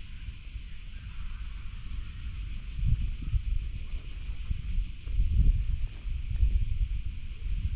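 Wind buffeting the microphone in uneven gusts, loudest about three seconds in and again around five to seven seconds, over a steady high-pitched hiss.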